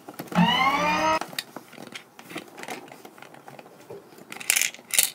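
A short pitched vocal sound lasting under a second, then small clicks of plastic toy figures being handled and two short hissing noises near the end.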